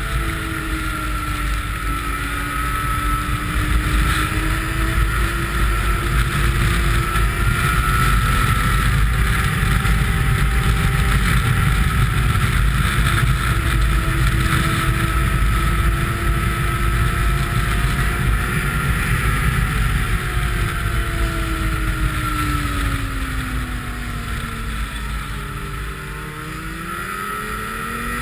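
Snowmobile engine running at speed along a trail, its note wavering, with wind rumbling on the microphone. About three-quarters of the way through the pitch falls as the sled eases off, then it climbs again near the end as it speeds back up.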